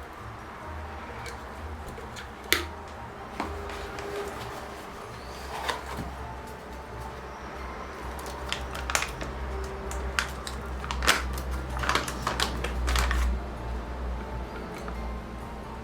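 Scattered light clicks and knocks of objects being handled, with one sharp louder click about two and a half seconds in and a run of closely spaced clicks in the second half, over a steady low hum.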